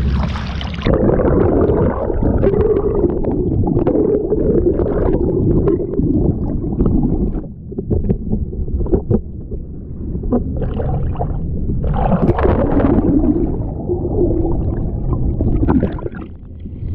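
Muffled gurgling sea water with scattered knocks, all of the high end cut off from about a second in, as heard by a camera held under the sea surface.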